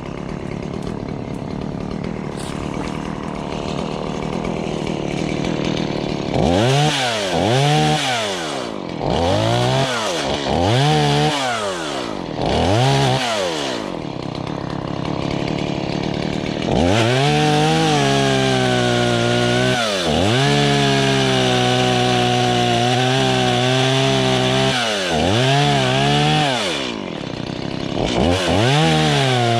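Gas chainsaw cutting up fallen trees. It idles at first, then is revved in a series of short blips. From about halfway it is held at high revs for roughly ten seconds, dipping once, then drops back and is revved again near the end.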